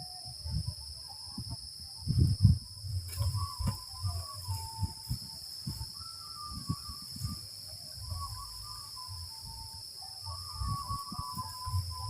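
Insects droning steadily at a high pitch, with wind buffeting the microphone in low gusts. From about three seconds in, a bird calls in wavering notes.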